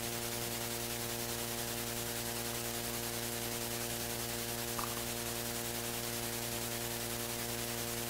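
Steady electrical hum with hiss, unchanging throughout, with one faint click about five seconds in.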